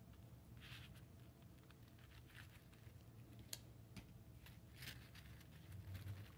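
Near silence, with a few faint soft rustles and two small clicks a little past the middle: a ribbon hair bow being handled.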